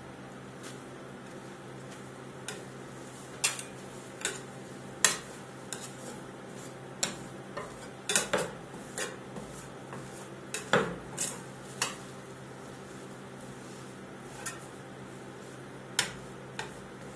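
Metal scraper tapping and scraping on a steel rolled-ice-cream cold pan as the ice cream base is spread thin, in irregular sharp clicks and scrapes that are busiest in the middle, over a steady low hum.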